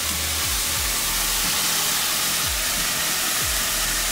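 Cold water poured onto rice toasting in a hot pot, hissing steadily as it flashes to steam.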